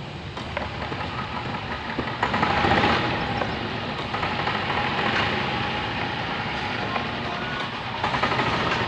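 Yamaha golf cart's gasoline engine running as the cart drives along, on a road test after repairs to its control circuitry, auto choke and electronic accelerator. The engine is steady and gets louder about two seconds in and again near the end.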